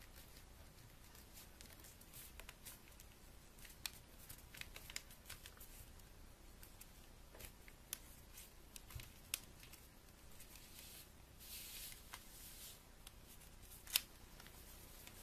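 A sheet of paper being folded and creased by hand on a tabletop: faint rustles and crisp little taps, a longer rustle about eleven seconds in and a sharp tap near the end.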